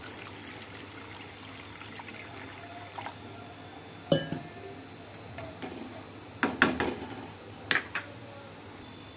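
Water poured into a metal kadhai of sautéed onion, tomato and chillies, a steady splashing over the first few seconds, followed by several sharp clinks of utensils against the pan.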